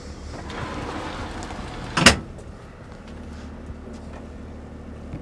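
A tool truck door banging shut once about two seconds in, after a few seconds of rustling movement, over a steady low hum.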